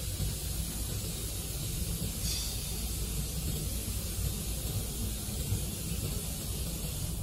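Steady hiss of background noise with a low rumble underneath, unchanging throughout.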